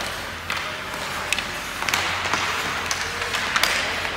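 Ice hockey play: sharp clacks of sticks and puck, about half a dozen spread over a few seconds, over the steady scrape of skate blades on the ice.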